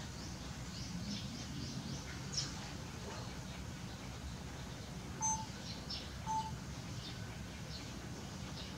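Small birds chirping in short, scattered calls over a steady low background noise, with two brief, louder clear notes about five and six seconds in.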